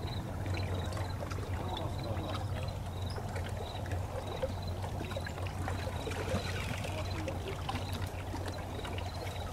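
Riverbank ambience: a steady trickle and lap of water against rocks over a steady low hum, with faint indistinct voices of other people.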